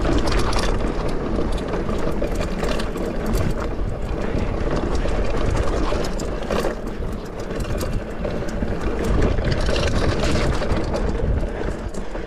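Mountain bike ridden over rough off-road ground: tyres rolling and crunching, with frequent rattles and knocks from the bike, and wind rumbling on the microphone.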